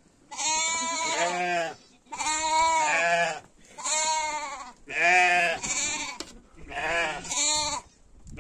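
Goats bleating: about five long bleats in a row, each lasting a second or more with a wavering pitch, with short pauses between them.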